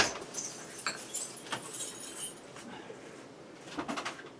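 Metal tools clinking and knocking against engine parts: one sharp knock at the start, then a few scattered light clinks.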